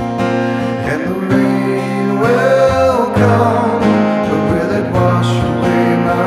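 A slow original song on acoustic guitar, played through a wet reverb pedal, with a wavering melody line held over the strummed chords.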